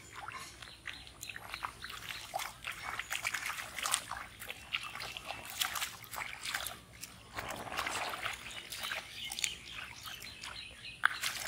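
Shallow muddy water splashing and sloshing in many quick, irregular splashes as bare feet wade and hands snatch through it while hand-catching fish. A denser run of splashing comes about two thirds of the way in.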